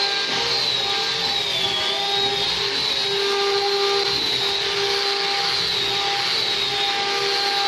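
Handheld angle grinder running steadily as it sands wood, a continuous motor whine with a high tone that wavers slightly as the disc is pressed against the surface.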